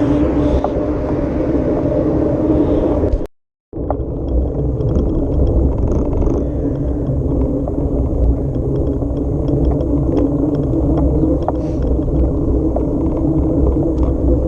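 A vehicle's engine running steadily under way over rough ground, with scattered small knocks and rattles. The sound cuts out completely for about half a second about three seconds in.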